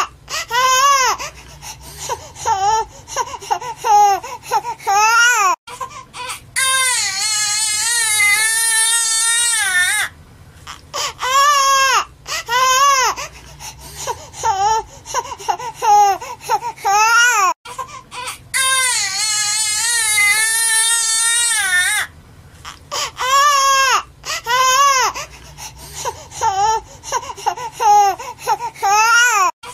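Newborn baby crying: runs of short rising-and-falling cries broken by a long wavering wail, the same pattern coming round about every twelve seconds.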